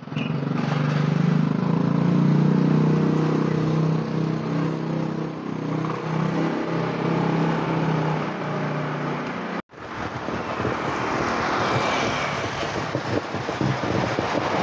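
Street traffic. A vehicle engine runs with a steady hum for most of the first part. After a brief break it gives way to the hiss of motorbikes and tyres on a wet road.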